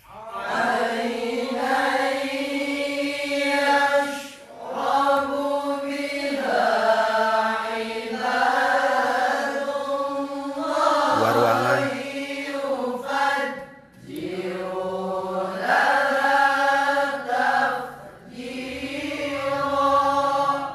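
Quran recited in the melodic mujawwad (tilawah) style: long, ornamented phrases sung on one breath, with short pauses for breath about 4, 14 and 18 seconds in.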